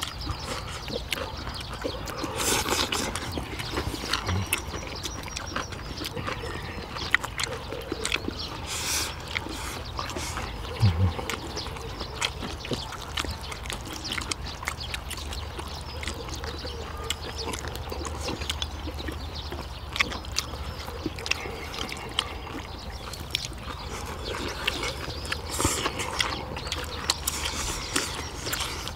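People eating braised kimchi stew with rice: close-up chewing and smacking, with many short clicks scattered throughout and an occasional low thump.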